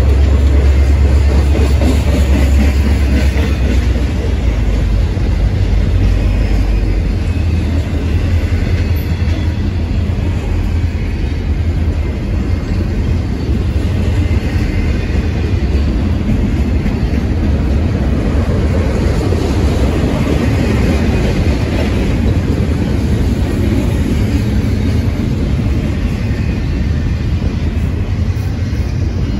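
Intermodal freight train's double-stack container cars rolling past: a steady, loud rumble of steel wheels on rail, heaviest in the deep low end for the first several seconds.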